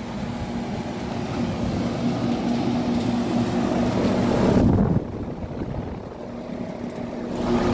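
Running central air-conditioner condensing unit: a steady hum from the compressor and condenser fan. It grows louder for the first few seconds, drops suddenly about five seconds in, and comes back up near the end.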